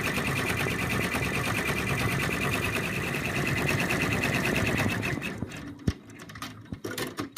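Embroidery machine stitching out a design in the hoop, running with a fast, even stitch rhythm; it stops about five seconds in, followed by a few sharp clicks.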